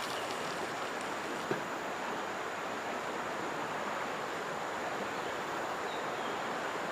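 River water flowing steadily, an even rushing hiss, with one small click about a second and a half in.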